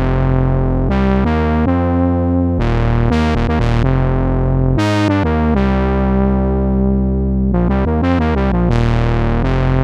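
Korg monologue monophonic analog synthesizer playing a factory preset: a bass-heavy riff of changing notes, some notes opening bright and buzzy, the notes coming faster near the end.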